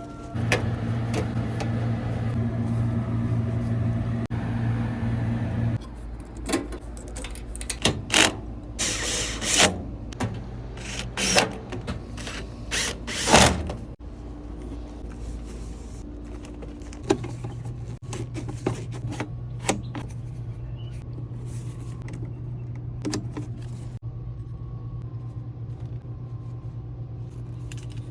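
Package air-conditioning unit humming steadily with a low electrical drone, which cuts off about six seconds in. A run of sharp clicks, knocks and scrapes follows, then the steady hum starts again past the halfway point.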